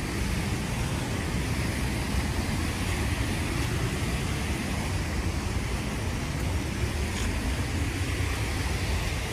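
Steady rushing of the Deschutes River flowing in the canyon below, with an uneven low rumble on top.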